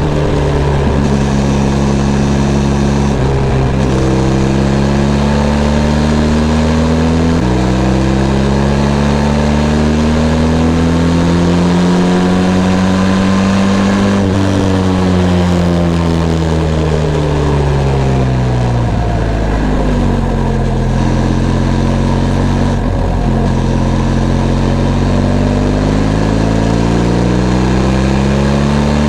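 Benelli TRK 502 X's 500 cc parallel-twin engine under way. The revs jump up suddenly about seven seconds in, climb steadily to about halfway, fall away for several seconds, then climb again near the end.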